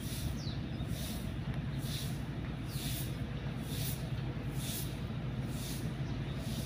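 A steady low engine-like hum, with faint high pulses repeating about once a second.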